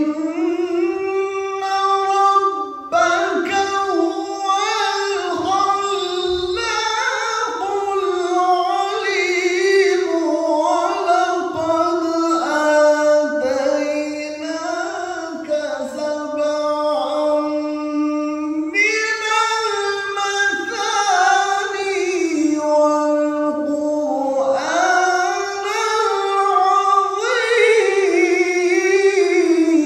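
A male qari's unaccompanied voice reciting the Quran in melodic maqam style. He sings one long, unbroken phrase on a high pitch, with held notes and wavering ornamental turns.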